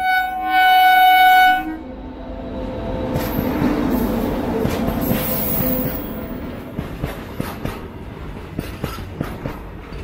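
WAG-9 electric freight locomotive sounding one horn blast of about a second and a half, then passing close by with a rumble that swells and fades. Its box wagons follow, wheels clattering rhythmically over the rail joints.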